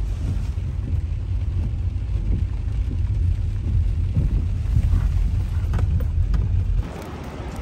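Steady low rumble of a car driving, heard from inside the cabin. It cuts off suddenly near the end, leaving a quieter hiss.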